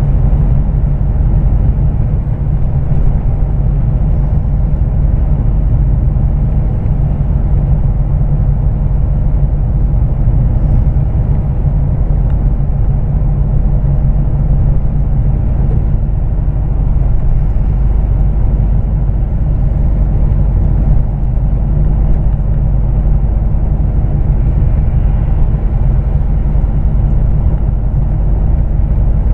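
Steady low rumble of a Scania truck's diesel engine and its tyres on the wet road, heard from inside the cab.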